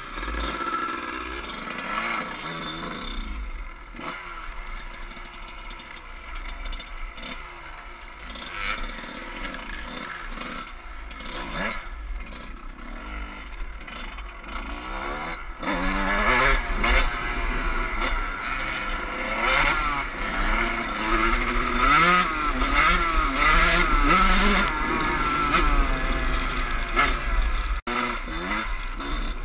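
Suzuki enduro dirt bike engine heard from on board, revving up and down as the bike rides a rough dirt track. It gets louder from about halfway through.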